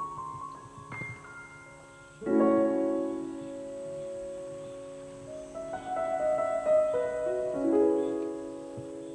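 Soft background piano music: held notes and chords, with a louder chord coming in about two seconds in and a shifting run of notes through the second half.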